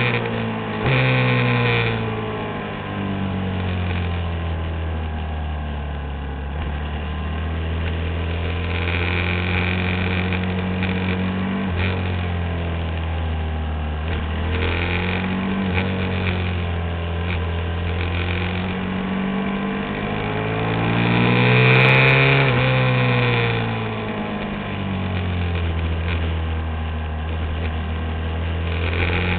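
Supermoto motorcycle engine heard from a camera mounted on the bike, under race load, its revs climbing and dropping again and again through gear changes and corners.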